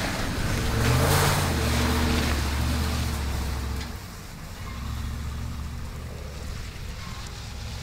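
Pickup truck engine revving hard as the truck pulls out through wet snow and mud, with a rushing noise of the tyres over it; about four seconds in it eases off to a lower, steady run as the truck moves away.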